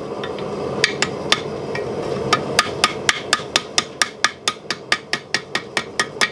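Hand hammer striking red-hot steel on the horn of an anvil, stretching the ring of a forged bottle opener to enlarge its opening. A few spaced blows come first, then a steady run of about four strikes a second.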